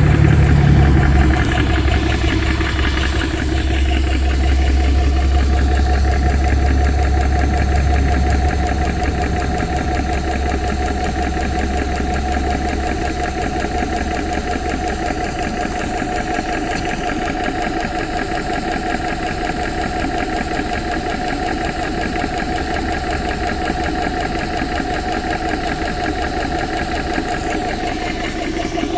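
Air Venturi RovAir portable high-pressure compressor running steadily on DC power, with its cooling fans on, pumping an air rifle up toward 300 bar. A deep low hum underneath it fades over the first ten seconds or so.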